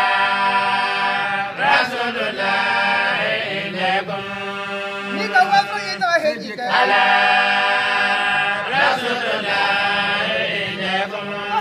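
A man chanting Islamic devotional verse, drawing out long held notes in slow melismatic phrases.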